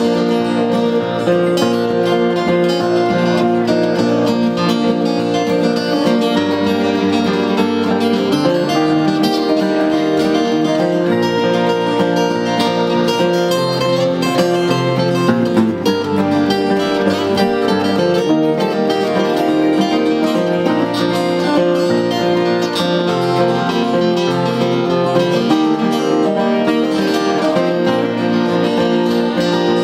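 Several acoustic guitars playing together live, strummed chords in an instrumental passage with no singing.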